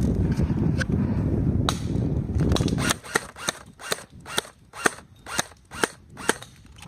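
Airsoft guns firing single shots in quick succession, sharp pops about two a second through the second half. Before that, loud low rustling close to the microphone.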